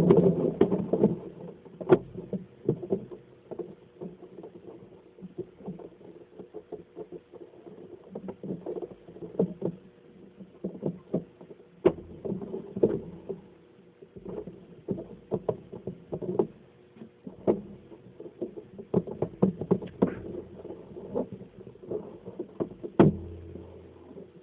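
Irregular clicks and light knocks, like small objects being handled and tapped, over a low rumbling noise.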